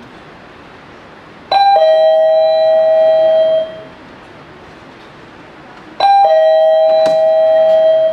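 Two-note ding-dong doorbell chime rung twice, about four and a half seconds apart: each ring a short higher note followed by a lower note held for about two seconds.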